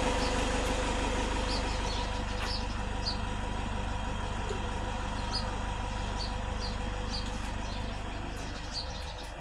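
A steady motor drone with a constant hum, easing off near the end, while small birds chirp repeatedly over it.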